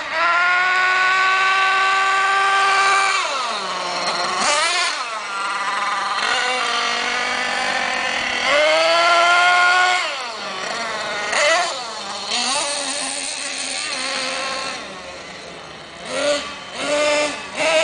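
Small 8.2 cc two-stroke nitro engine of an RC monster truck screaming at high revs. It is held flat out for a few seconds, drops off, and comes back up in two more long runs. Near the end it settles to a lower drone and then gives a few short throttle blips.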